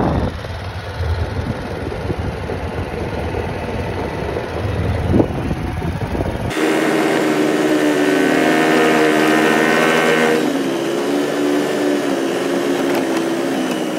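A vehicle being driven slowly: low rumble and wind on the microphone, with a knock about five seconds in. About six and a half seconds in, the sound changes abruptly to a steady engine hum with a clear, slowly wavering pitch.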